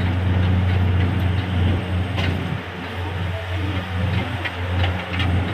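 Borewell drilling rig's engine running steadily, a low even drone.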